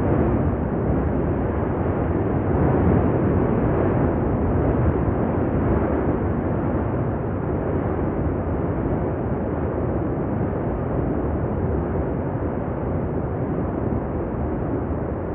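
Cumbre Vieja volcano erupting: a continuous, dense rumbling noise from the lava fountain and vent, steady with no separate blasts standing out, slightly louder in the first few seconds.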